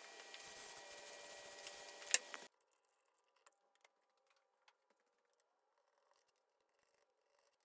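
Workshop room tone with a steady hum and hiss, broken by one sharp click about two seconds in. Then the sound drops away abruptly to near silence, with a few faint ticks.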